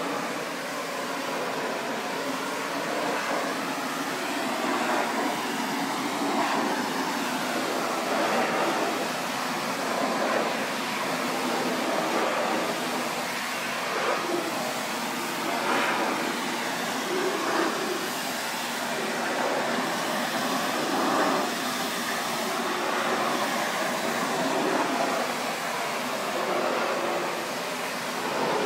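Pressure washer spraying a wooden deck: a steady hiss of the high-pressure jet on the wet boards, swelling and easing as the wand sweeps back and forth.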